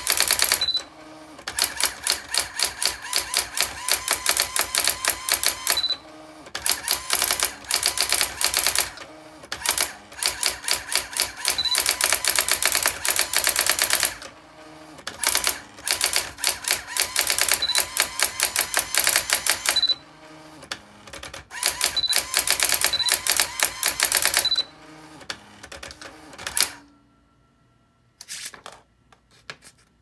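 Electronic daisy wheel typewriter printing text under computer control: runs of rapid, even character strikes broken by short pauses. The typing stops a few seconds before the end.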